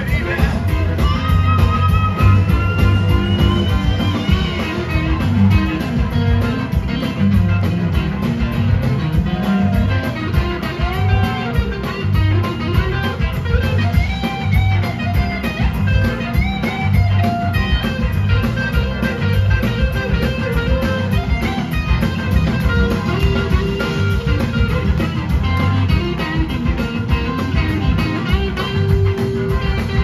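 Live blues-rock band playing an instrumental break: an electric slide guitar takes the lead with gliding notes over bass, drums and keyboards.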